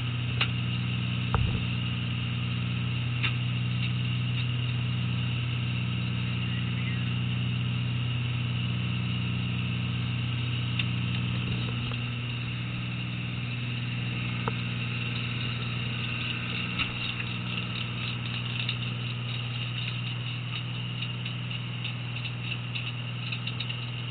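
A fishing boat's engine running steadily under way, a constant low drone, with a few sharp knocks and a faint clatter from the deck, busier in the second half.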